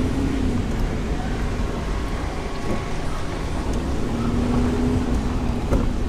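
Car driving along a road, heard from inside the cabin: steady engine and tyre noise.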